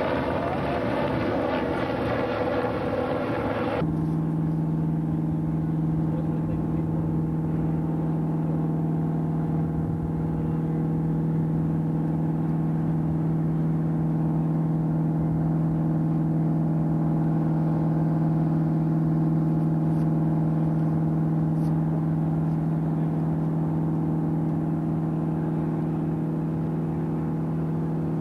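A helicopter overhead for about the first four seconds, a loud, rushing noise. After an abrupt change, a boat's engine running steadily as a constant low drone with a hum.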